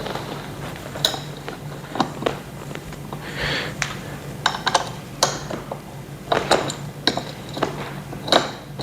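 Metal Allen key clicking and clinking against a bolt and the chair's metal fittings as a bolt is tightened: irregular sharp clicks, with a short scrape about three and a half seconds in.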